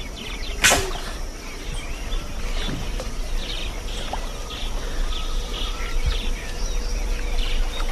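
Forest ambience: many birds chirping and calling over a steady high insect drone, with one short rush of noise less than a second in.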